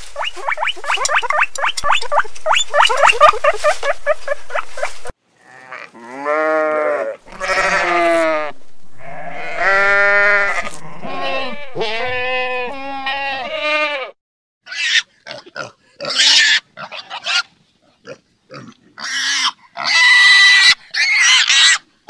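A fast run of short, high chirping calls, about seven a second, from a red squirrel. About five seconds in, sheep bleat: several long, wavering baas one after another. From about fourteen seconds on come the short, high squeals and grunts of piglets at a sow.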